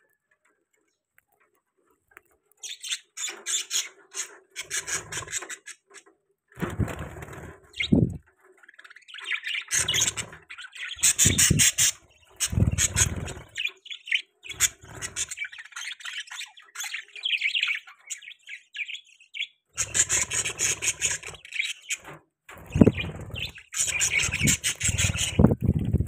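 Budgerigars chirping and chattering in repeated bursts after a couple of seconds of quiet, mixed with low knocks and rustling.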